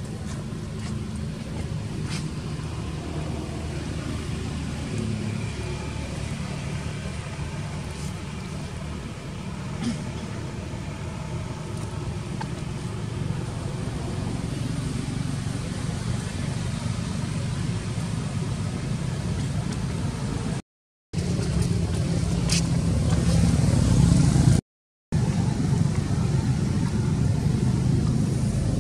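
Steady low rumble of outdoor background noise with a few faint clicks, cut off to silence twice briefly near the end where the footage is edited.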